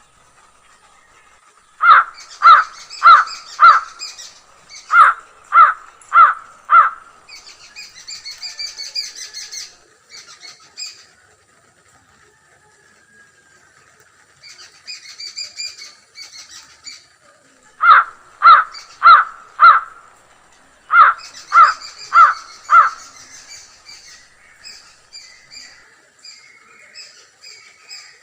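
Crows cawing in four bouts of four harsh caws, each caw about half a second apart. Fainter high chirping of smaller birds runs between and over the bouts.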